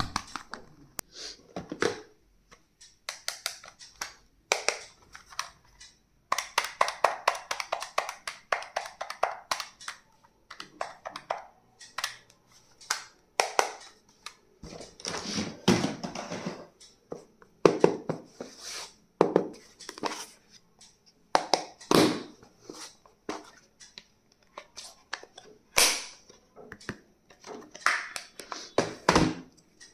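Packaging being handled and unwrapped: crinkling and rustling, with irregular sharp clicks, taps and a few dull knocks.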